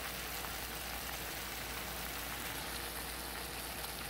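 Pan of cabbage with bacon and bell peppers sizzling and simmering on the stove: a steady hiss of cooking juices.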